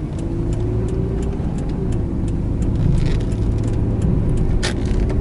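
The 2003 Subaru Forester's 2.5-litre flat-four engine and road noise as it drives, heard inside the cabin: a steady low rumble that grows a little louder, with scattered sharp clicks and one louder click near the end.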